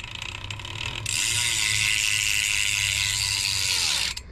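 BMX wheel spun by hand, its hub running with a fast, steady ratcheting whir from the freewheel pawls and chain. It slows briefly, then stops suddenly near the end. The bearings turn smoothly with no gritty sound of sand.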